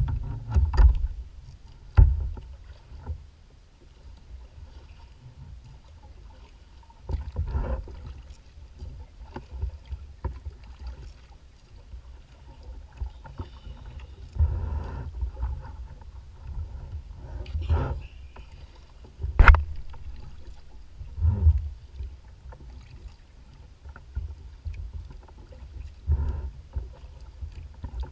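Choppy lake water lapping and slapping against a plastic kayak's hull, coming in irregular swells of low rumble, with a few sharp knocks; the loudest knock comes about two-thirds of the way through.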